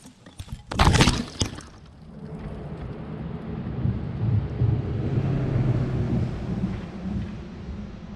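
The brushless motors of a 5-inch FPV quadcopter (iFlight Xing 2306.5 1777kv) give a short, quick rev about a second in. After that comes a low rumble that swells and then fades.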